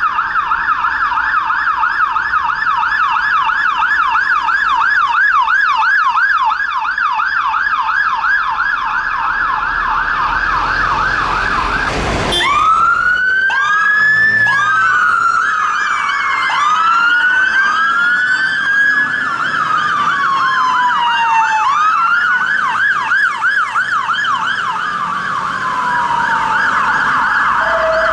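An emergency van's siren on a rapid yelp, rising and falling about three times a second. About twelve seconds in, it gives way to several fire engines' sirens sounding at once, slow wails and fast yelps overlapping as they turn out.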